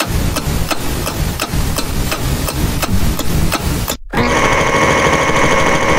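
Clock-ticking sound effect, about three sharp ticks a second. About four seconds in it cuts to the steady, fluttering drone of a car engine running.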